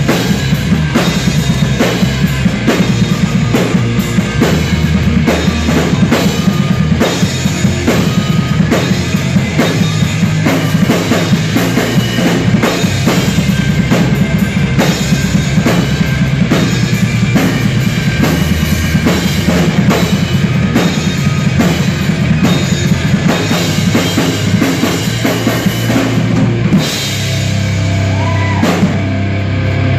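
A rock band playing live: two electric guitars, bass guitar and a drum kit, with the drums beating steadily. About three seconds before the end the drum strokes stop and the guitars ring out on a held chord with a bent note.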